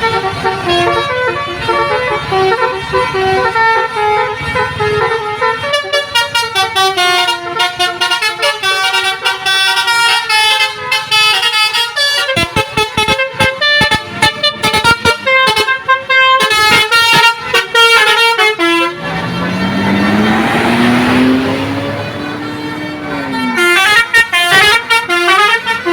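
Telolet multi-tone bus air horn of the Basuri type playing a melody of quickly changing notes, with a run of short rapid blasts through the middle. About two-thirds through, a rising sweep with a hiss interrupts it before the melody resumes.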